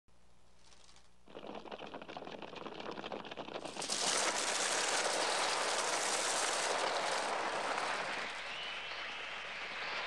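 A flock of birds' wings flapping in a dense, rapid flutter, made electronically rather than recorded from live birds. It comes in about a second in and swells much louder near four seconds, with wavering bird cries near the end.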